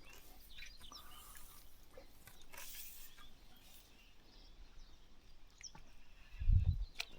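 Faint bird chirps over outdoor background noise, with a brief rustle about two and a half seconds in. A low thump about six and a half seconds in is the loudest sound, followed by a sharp click near the end.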